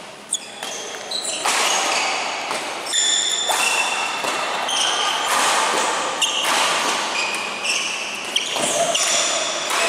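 Court shoes squeaking in short, high-pitched chirps on a badminton court floor, with occasional sharp racket-on-shuttlecock hits, echoing in a large sports hall.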